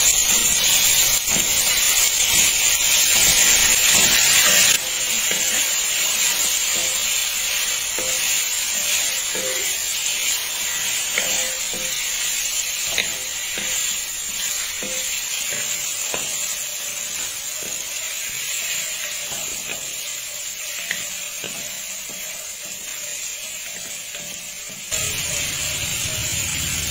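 Chicken drumsticks and sliced shallots sizzling in hot oil in a stainless steel pan, with a wooden spoon scraping and knocking against the pan as they are stirred. The sizzle is louder for the first five seconds or so, then drops suddenly.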